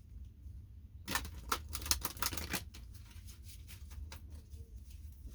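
A deck of tarot cards being shuffled: a quick run of crisp clicking riffles starting about a second in and lasting about a second and a half, then a few lone clicks, over a steady low hum.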